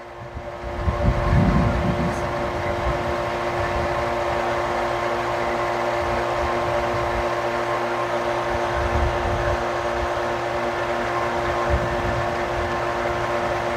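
Flotec 3/4 horsepower electric water pump running steadily with a motor hum, pumping water to build pressure in the pressure tank while a faucet is open. It gets louder about a second in.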